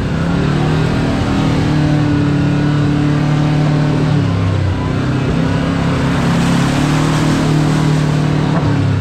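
Kawasaki KRX4 1000 side-by-side's parallel-twin engine running steadily while under way on a trail. Its pitch dips about halfway through and then climbs again, and a rushing noise grows louder near the end.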